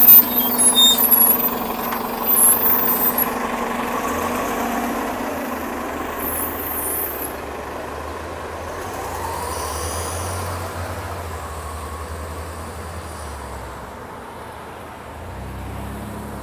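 City transit bus moving off close by, its engine running with short bursts of air hiss in the first few seconds and again a few seconds later. The engine sound then fades steadily as the bus pulls away down the street.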